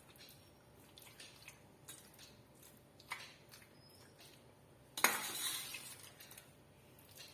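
Spoon clinking and scraping against a bowl while stirring marinated chicken pieces with oil and masala: scattered light taps, a sharper click about three seconds in, and a louder clatter about five seconds in.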